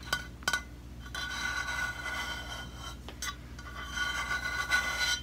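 Fingers rubbing and scratching over a stainless-steel Hydro Flask water bottle: two light taps, then a steady rasping with the bottle ringing faintly at several pitches.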